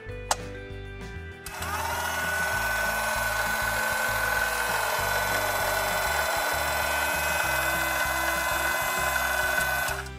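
Battery-powered toy microwave oven running: after a click of its door, a small buzzing motor-like hum starts about a second and a half in, rising briefly in pitch and then holding steady with a high tone on top, and cuts off suddenly near the end.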